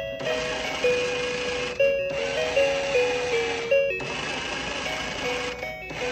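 Toy washing machine running its wash cycle: a simple electronic tune plays over the whir of its small motor. It goes in stretches of about two seconds, each cut off by a brief break.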